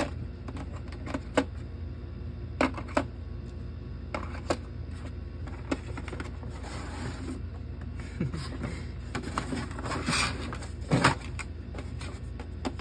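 Plastic game miniatures being set into a plastic insert tray: scattered light clicks and taps, a short rustle about six and a half seconds in, and a cluster of louder knocks near eleven seconds, over a steady low hum.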